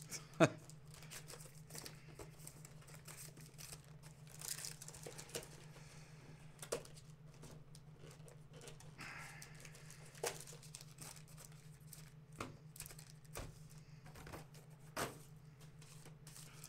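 Cardboard trading-card box and packs being handled: scattered taps, knocks and rustles of cardboard and pack wrappers, the loudest a sharp tap about half a second in, over a steady low hum.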